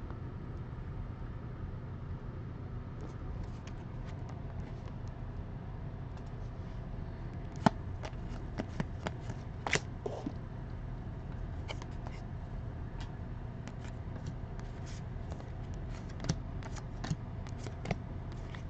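Trading cards being handled and flipped through: scattered light clicks and rustles of cards sliding against each other, a few sharper snaps among them, over a steady low hum.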